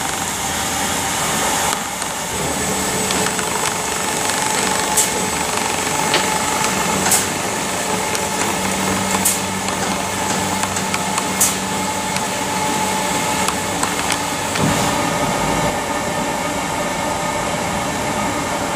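Trumpf TruLaser Tube 5000 CNC tube laser cutter running: a steady mechanical hum and hiss, with four sharp ticks about two seconds apart in the middle.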